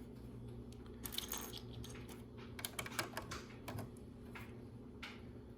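Small plastic LEGO pieces clicking and clattering as they are handled and pressed into place, in quick clusters of light clicks about a second in and again around the middle.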